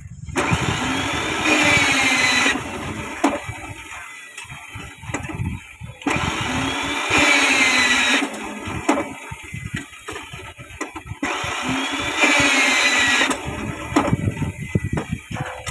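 Electric rebar bending machine running in three bends of about two seconds each, its motor whining up and then down as the bending disc turns and forms a steel reinforcing bar into a stirrup. Between bends come knocks of the steel bar being moved and set against the pins.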